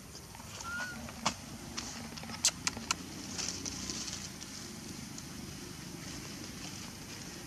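Young macaques scampering and leaping across dry leaf litter: a few sharp crackles and snaps between about one and three seconds in, then a rustle of leaves as they run. A brief high squeak comes about a second in.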